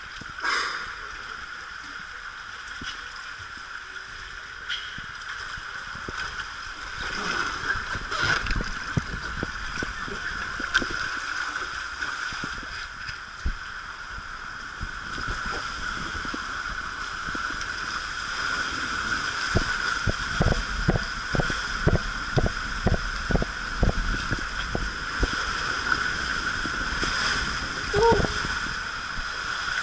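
Water rushing through an enclosed fibreglass water-slide tube as a rider slides down it, a steady hiss of flowing water. A quick run of knocks and bumps against the tube comes over the second half.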